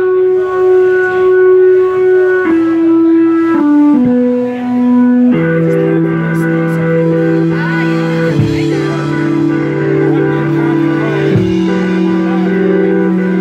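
Live band music led by electric organ: held chords that change every couple of seconds, with lower bass notes joining about five seconds in.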